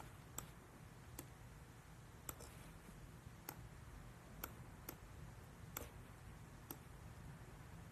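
Near silence over a low steady hum, with faint sharp clicks at an uneven pace, roughly one a second.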